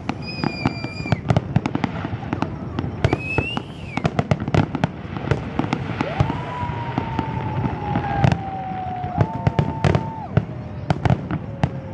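Fireworks display bursting, a dense run of bangs and crackling. Several whistling tones run through it, one long one slowly falling in pitch from about halfway in.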